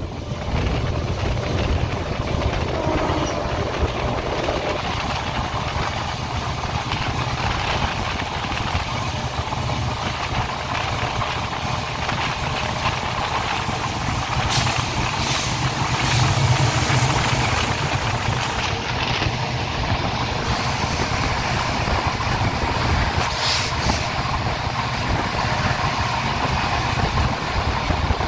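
EMD diesel-electric locomotive hauling a passenger train, heard from an open coach window: a steady low engine drone under wheel and rail noise and rushing air as the train picks up speed. Brief hisses come about halfway through and again near the end.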